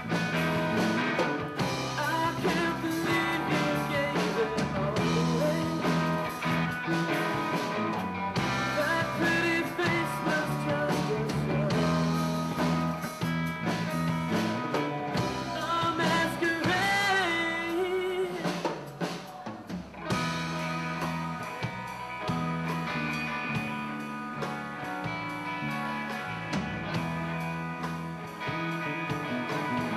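Live rock band playing electric guitar, bass guitar and drum kit, with bent lead notes around the middle. The band drops back briefly a little after halfway, then carries on.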